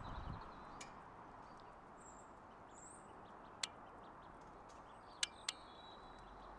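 Faint high-pitched peeping of mallard ducklings over a quiet outdoor hiss, with three short sharp clicks in the second half.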